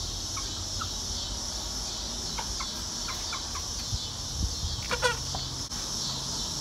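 Rooster clucking: a scatter of short, soft clucks, then a longer, louder call that falls in pitch about five seconds in, over a steady high hiss.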